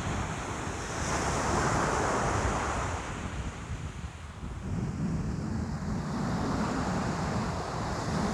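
Ocean waves breaking and washing on the shore, swelling and easing in slow surges, with wind buffeting the microphone.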